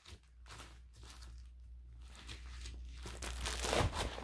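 Pages in clear plastic sleeves being leafed through in a ring binder: a continuous rustling and crinkling that grows louder toward the end as the stack is turned over.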